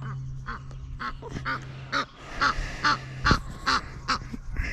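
Waterfowl calling over and over, short calls about two a second, with a sharp thump about three seconds in.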